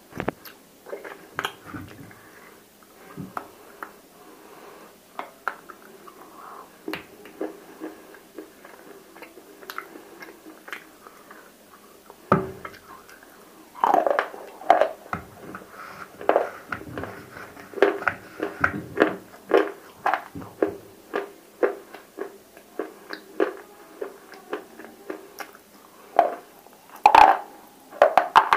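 Close-up dry crunching and chewing of cubes coated in roasted nakumatt clay paste: irregular sharp crunches, sparse at first, then thicker and louder from about halfway through.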